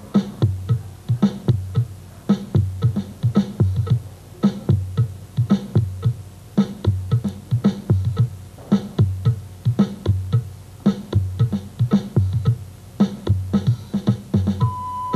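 Instrumental dance music driven by a fast, steady beat of low percussion strokes, several a second; a held higher note comes in near the end.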